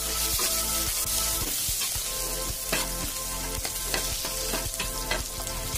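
Julienned ginger, slit green chillies and nigella seeds sizzling in hot oil in a non-stick kadai, stirred with a spatula that clicks and scrapes against the pan. The hiss is steady, with frequent sharp ticks and pops.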